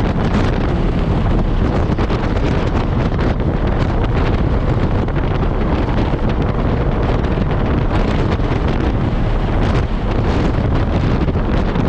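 Steady rumble of wind on the microphone, with the engine and road noise of a moving car beneath it.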